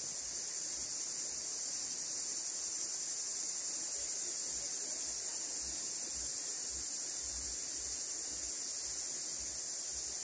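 Steady, shrill chorus of insects with no break.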